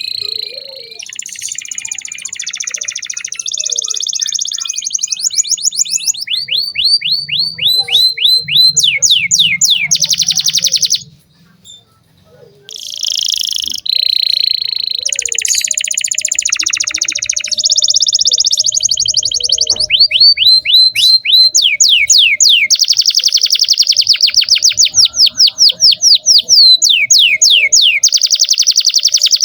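Domestic canary in full song, delivering a long, loud run of fast repeated sweeping notes and rapid trills. The song breaks off for about a second and a half near the middle, then resumes.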